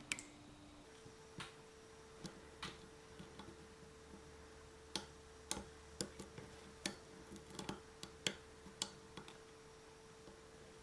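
Lock pick working the pins inside a Yale pin-tumbler lock cylinder: faint, irregular sharp metallic clicks as the pins are probed and lifted.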